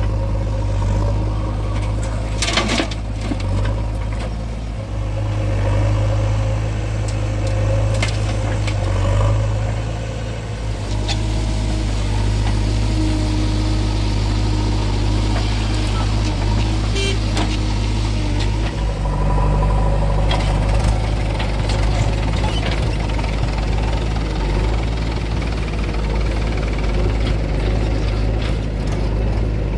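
Diesel engines of a JCB 3DX backhoe loader and farm tractors running steadily, with a few sharp knocks. The engine note shifts about two-thirds of the way in.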